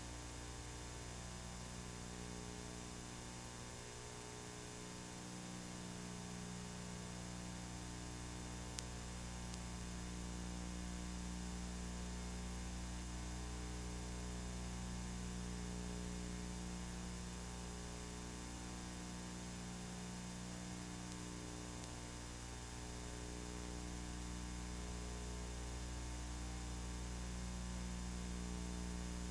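Steady electrical mains hum, a stack of constant tones with a light hiss of static and no other sound; a single faint click about nine seconds in.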